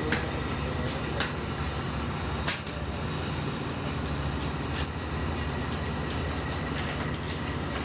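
A heavy machine's engine runs steadily with a low rumble. Sharp metallic clanks or knocks break in now and then, about five times.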